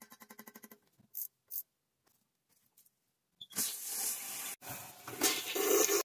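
Toilet being flushed: loud water rushing through the tank and bowl for the last two and a half seconds, with a brief break partway, as a test flush of the toilet reset on its new wax ring. Before that, a quick run of ticks and two clicks from a nut being turned down on the toilet's floor bolt.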